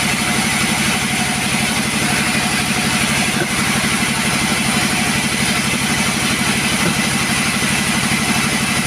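Chainsaw engine running steadily at idle, its fast even pulse unchanged throughout.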